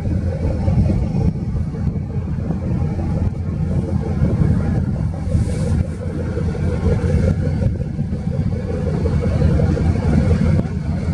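Steady low rumble of a ship's engines under way, with a hiss of wind and water over it that swells briefly about halfway through.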